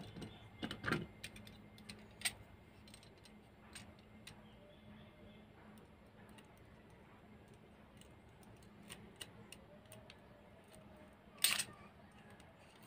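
Metal parts of a stapler clicking and clinking as they are handled and fitted back into its plastic body: scattered light clicks, with a cluster about a second in and a sharper, louder click near the end.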